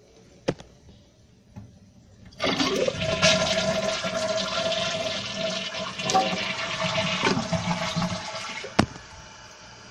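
A 2007 Kohler Wellworth toilet flushing. A sudden rush of water starts about two and a half seconds in and slowly fades over about six seconds, ending with a sharp click, then a quieter hiss as the tank refills.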